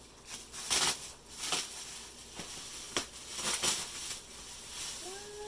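Packaging being crinkled and torn open by hand, in several short rustling bursts with a sharp click about three seconds in. A steady hummed tone starts near the end.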